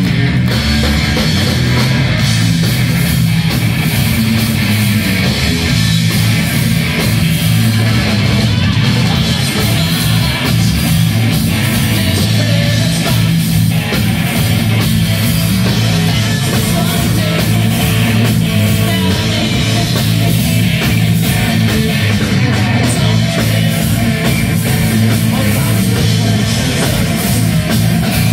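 A live heavy metal band playing loud and without a break: distorted electric guitars, bass and a drum kit, with a singer's voice, heard from among the audience.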